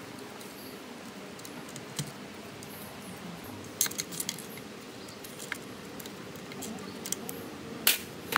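A few sharp metallic clinks and clicks of metal parts being handled, several close together about four seconds in and the loudest near the end, over a steady low hum.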